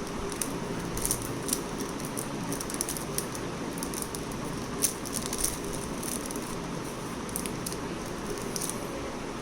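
Scattered small clicks and light rattles of hands handling a DDR3 laptop RAM module, over a steady background hiss. The sharpest click comes nearly five seconds in.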